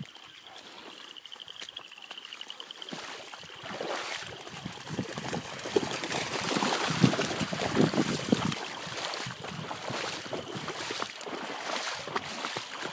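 Puppies splashing as they run through shallow standing water, loudest in the middle stretch. A faint, high, rapidly repeated trill runs through the first three seconds.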